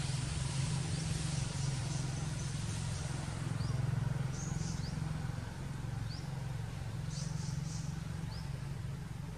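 Outdoor ambience: a steady low hum throughout, with short high rising chirps every second or so.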